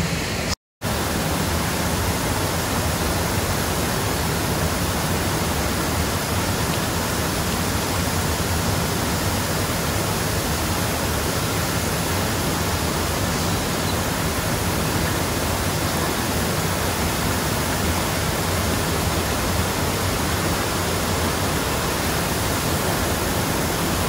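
Steady rush of water pouring over a small stepped weir into a shallow river, a constant even noise. It drops out for a split second just under a second in.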